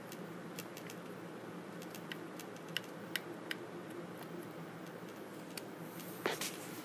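Faint, scattered clicks and light handling noise over a steady low hum, with a short rustle about six seconds in.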